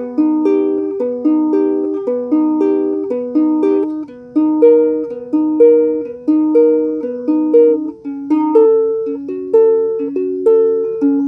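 Ukulele playing single plucked notes that ring into one another in a repeating arpeggio-like pattern, about two notes a second.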